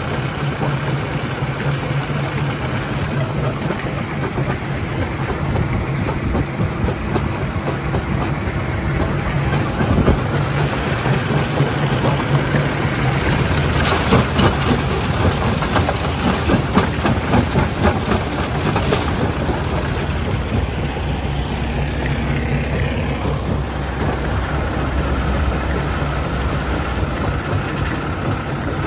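Stone-crushing machinery, a primary jaw crusher, running with a steady low drone. About 13 seconds in, a stretch of dense rattling and cracking of rock being broken and tumbling through begins; it eases off around 19 seconds in.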